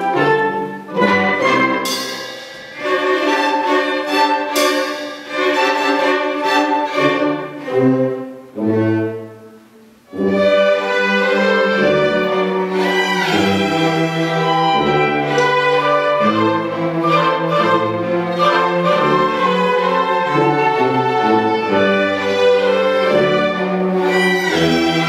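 Community orchestra, strings leading, playing a light orchestral waltz. The phrases break off and the music almost stops about ten seconds in, then the full orchestra comes back in and plays on steadily.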